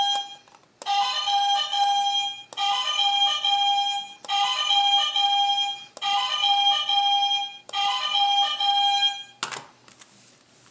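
Electronic beeping jingle, a storybook app's sound effect for the red button, playing over and over: about six bursts of a second and a half each with short gaps, as the button is pushed a bunch of times. A brief noisy rustle follows near the end.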